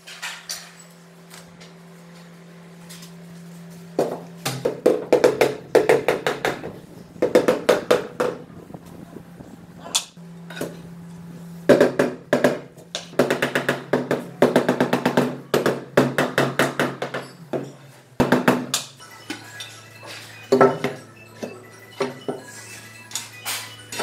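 Rubber mallet tapping a large floor tile down into its bed of tile adhesive, in runs of rapid knocks with short pauses between. A steady held musical tone plays underneath.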